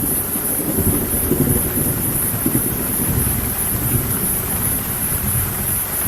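Steady rain falling during a thunderstorm, with thunder rolling in a low rumble that swells and fades. A steady high hiss runs over it.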